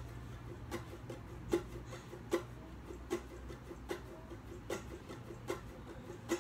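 Ukulele strummed in a steady rhythm, a sharp strum about every 0.8 seconds with soft chords ringing between, and no singing.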